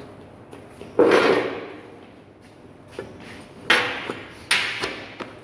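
Steel pieces clanking in a metal fabrication job: three sharp knocks, each ringing and dying away, the first about a second in and the loudest, with a lighter click between.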